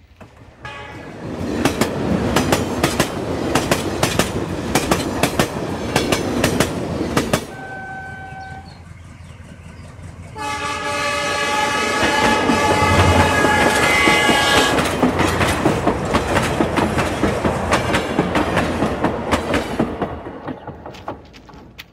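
Diesel locomotive-hauled train approaching, its wheels clattering rapidly over the rail joints. The horn gives a short note about 8 s in, then a long loud blast from about 10 to 15 s, and the clatter fades away near the end.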